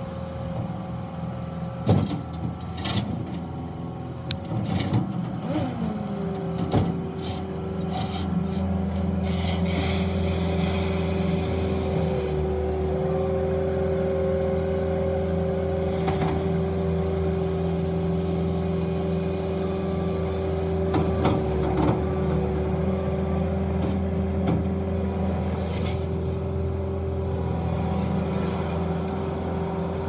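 Bobcat S650 skid steer loader's diesel engine running under load while the machine works its bucket, with a steady whine over the engine note that drops in pitch and settles about six seconds in. Sharp clanks come several times in the first eight seconds and again about two-thirds of the way through.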